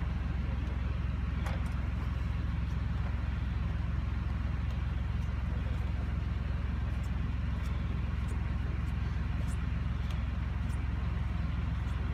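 Old logging transport tractor's engine running steadily with a low, even hum as it slowly pulls a loaded passenger wagon.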